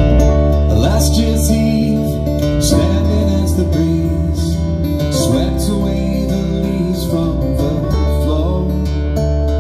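Live band music: a strummed acoustic guitar over bass guitar, with a man singing.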